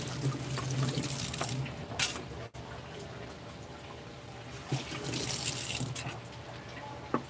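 Kitchen tap running in two short spells, a gush of water into the sink each time, with a sharp knock about two seconds in.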